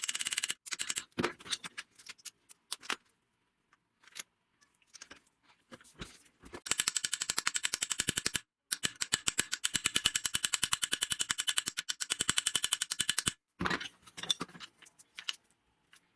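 Rapid, evenly spaced mechanical clicking in two long runs, each several seconds, with scattered clicks and knocks before and after.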